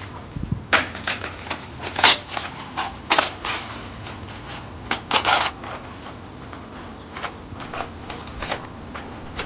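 Metal parts of a compact fire pit clacking and clinking as it is put together by hand: irregular sharp clicks, loudest about two seconds and five seconds in.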